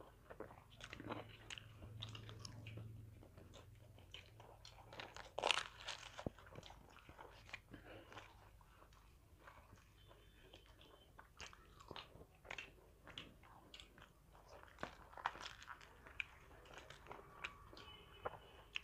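Close eating sounds of people eating luchi and chicken curry by hand: chewing and biting with many short clicks, the loudest about five and a half seconds in.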